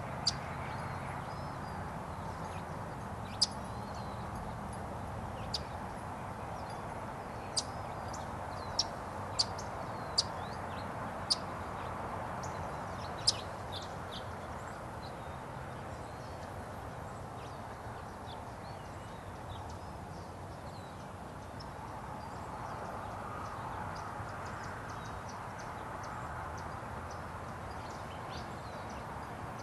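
Short, sharp, high bird chips, about nine in the first fourteen seconds, then many fainter quick high ticks later on, over a steady outdoor background hiss.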